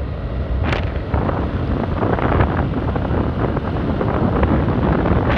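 Steady rush of wind buffeting the microphone while riding a motorcycle.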